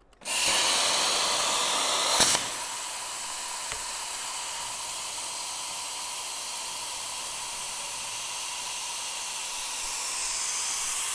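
Plasma torch cutting through 0.120-wall stainless steel tubing: a hiss that starts suddenly, louder for the first two seconds, then settles into a steady hiss with a faint steady whine.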